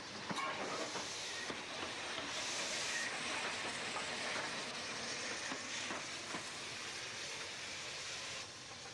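Saddle-tank steam locomotive moving slowly past at close range, hissing steam, with a few knocks from the wheels and motion. The hiss swells about two to three seconds in and drops away suddenly near the end.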